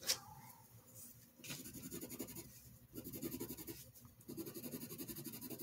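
A white Kalour colored pencil rubbed on sketch paper in quick back-and-forth shading strokes, in three spells of scratching. A light knock comes at the very start.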